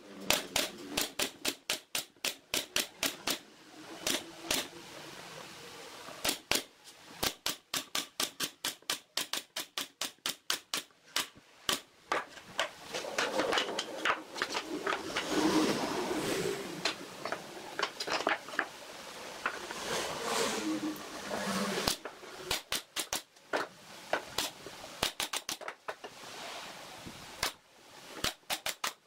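Workshop work sounds: runs of quick sharp taps and knocks on wood, several a second, broken by two stretches of rougher scraping noise, one about halfway through and one a little later.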